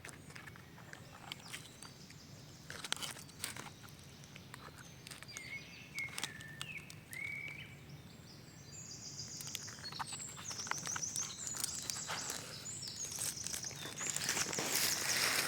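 Forest birds calling: a few short, sliding calls, then fast high trills repeating over several seconds. Scattered clicks and rustling throughout, growing into louder crunching rustles near the end, like footsteps or gear being handled on leaf litter.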